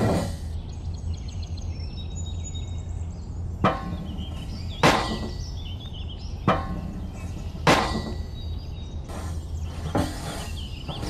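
Five sharp clicks and taps of small hard plastic and metal parts being pressed and snapped together by hand while fitting a model tractor's blade attachment and spring shock absorbers, over a steady low hum.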